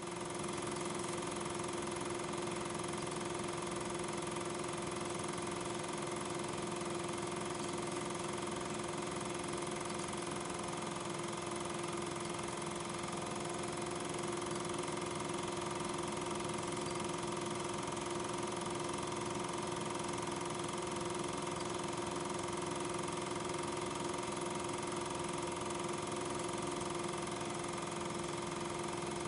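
Regular 8 mm film projector running: a steady mechanical hum with a constant whine.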